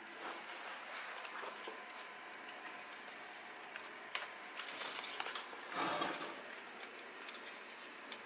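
Light clicks and clinks of hand tools and metal fittings being handled, with a louder scraping rustle about six seconds in.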